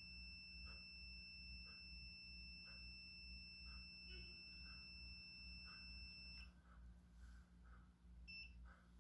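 A digital multimeter's continuity buzzer gives a steady high beep while its probes read only a few ohms across the SCR module's terminals. The beep cuts off about six and a half seconds in, and there is one more short beep near the end.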